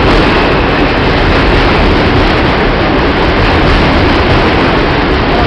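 New York City Subway R142 train rolling into the station alongside the platform: a loud, steady rumble of its wheels on the rails.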